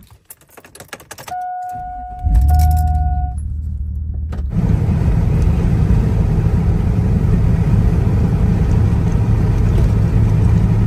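Keys jingling and door clicks, then a two-part electronic warning chime as the SUV's engine starts and settles to idle about two seconds in. From about four and a half seconds on, steady engine and road noise heard from inside the cab at highway speed.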